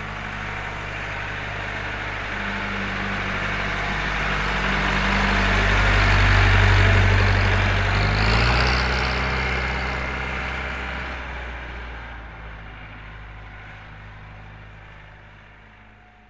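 Pettibone tow tractor's diesel engine passing by. It grows louder, is closest about six to seven seconds in, then fades away.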